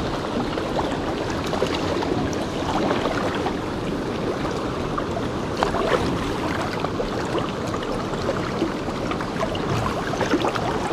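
Steady rushing of a river's flowing water, with a few small clicks scattered through it.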